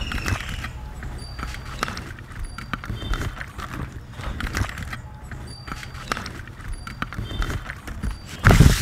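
Irregular light clicks and knocks as hands sprinkle turmeric onto raw fish slices and rub them in a steel plate. There is a louder burst of noise near the end.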